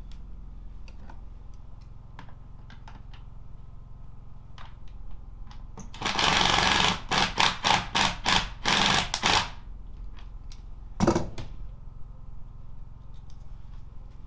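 Cordless power driver driving fasteners: scattered light clicks and knocks, then about halfway through a second-long run of the tool followed by a quick string of short trigger bursts, and one more short burst a little after.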